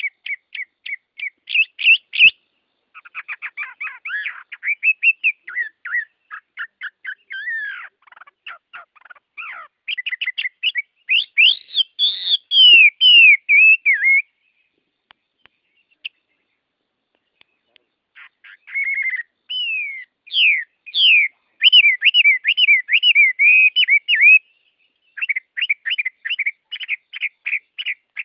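Songbird singing in phrases of quick chirps and whistled, sweeping notes, with a pause of a few seconds midway.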